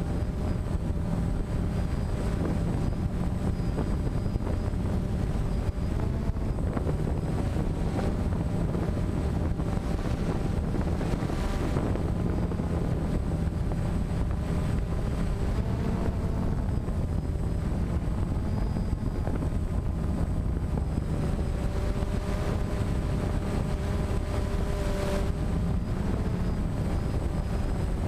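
DJI Phantom quadcopter's electric motors and propellers humming steadily, the pitch drifting a little as the motors adjust, with wind rushing over the microphone.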